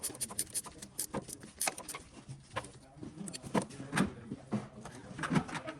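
A run of irregular light clicks, clinks and knocks, like hand tools and metal parts being handled during work on a car's cooling system, with a few brief murmurs of voice.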